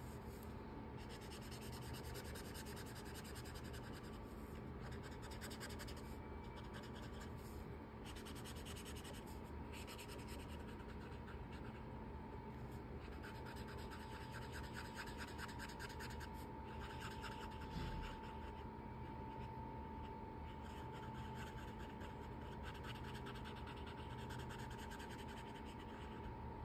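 Orange felt-tip marker scratching over paper in runs of quick short strokes as it colors in a filled area.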